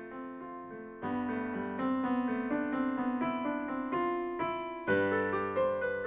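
Piano music, growing louder about a second in and again about five seconds in.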